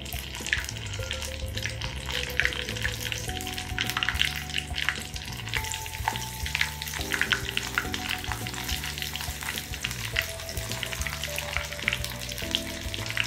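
Bread-crumb-coated chicken pieces deep-frying in hot oil in an iron kadai on a low flame: a steady, dense crackle and sizzle of many small pops.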